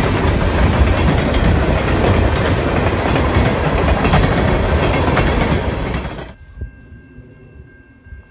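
Freight train of tank cars and covered hoppers rolling past, with wheels clattering over the rail joints. About six seconds in the sound cuts off suddenly to a much quieter stretch with a faint steady high tone.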